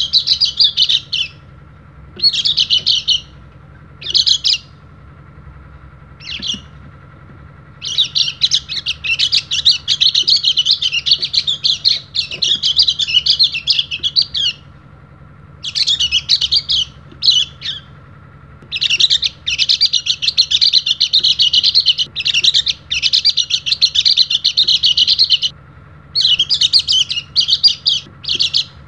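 A white-eye (pleci) singing in rapid, high chirping phrases. Short bursts alternate with long unbroken runs of song several seconds long, separated by brief pauses. A faint steady hum runs underneath.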